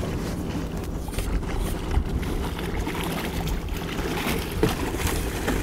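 Wind rumbling on the microphone over open water, with a hooked gilthead bream splashing at the surface beside an inflatable boat as it is brought to the landing net.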